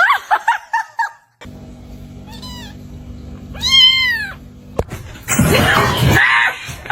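Domestic cats meowing: first a quick run of about six short chirping calls, then a short meow and a longer drawn-out meow that rises and falls, then a louder, harsher, noisier cry near the end.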